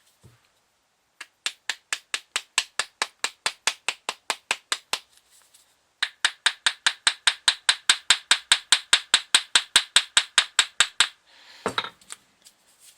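Rapid, even taps on the front end bracket of a Lucas C45 third-brush dynamo, about six a second in two runs, the second run louder, struck to free a tight-fitting end bracket that will not come off easily.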